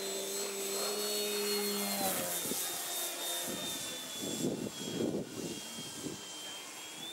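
Overlander Extra 260 radio-controlled model plane's motor and propeller at full throttle for take-off, a steady drone with a high whine; after about two seconds the drone fades as the plane climbs away, leaving the thinner whine. Gusts of wind buffet the microphone in the second half.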